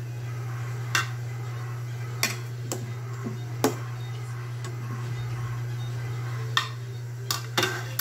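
A metal spoon clinking against the cooking pot, about seven separate knocks spread irregularly, as potatoes and pork are stirred in simmering broth. A steady low hum runs underneath.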